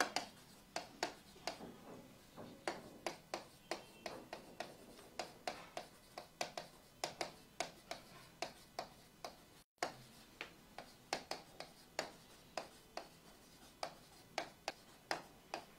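Marker pen writing on a whiteboard: short, sharp strokes and taps of the tip, a few a second and irregular, as letters are written.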